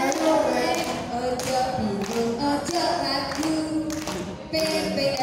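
A group of women singing together a cappella, in held notes, with hand claps striking now and then.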